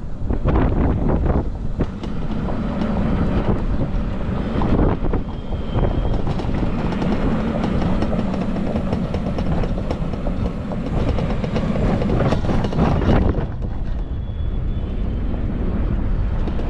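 Golf cart driving along a concrete cart path: steady running and tyre noise with a continuous clattering rattle from the cart's body. The rattling eases about 13 seconds in.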